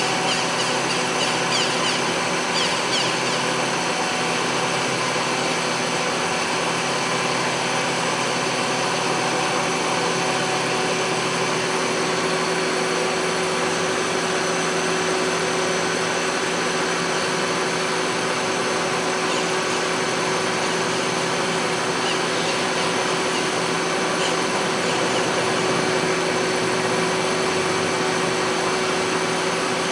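Citizen L32VII Swiss-type CNC lathe running: a steady mechanical whir and hum with a few steady tones over an even noise.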